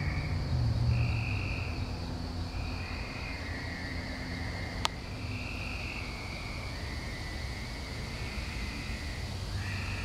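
Frogs calling: overlapping high calls, each about a second long, repeating every second or two over a steady low rumble. A single sharp click comes about five seconds in.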